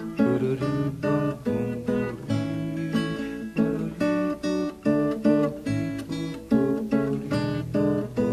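Acoustic guitar playing a steady run of plucked chords and notes.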